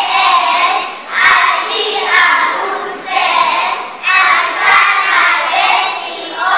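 A group of young children singing a song together in unison, in short phrases with brief dips between them.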